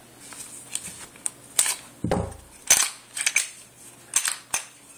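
Handling noise: a series of sharp clicks and knocks as the phone and objects near it are moved about, with a dull thump about two seconds in.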